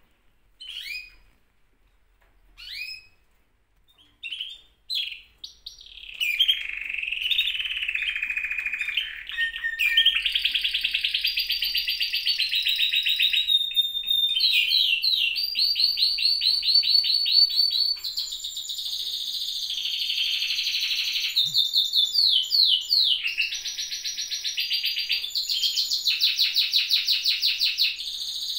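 Caged canaries singing: a few short, falling chirps at first, then from about six seconds in a continuous song of rapid trills, each held on one pitch for several seconds before switching to another.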